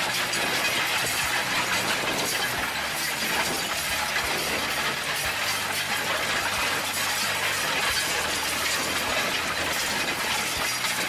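Tume Maximaster 6001 direct drill working a stony field: a steady dense clatter and rattle of disc coulters, press wheels and harrow tines running over stones, with the tractor's engine running underneath.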